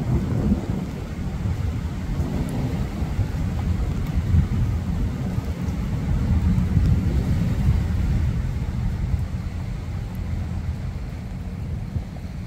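Wind buffeting a phone's microphone: a loud, uneven low rumble.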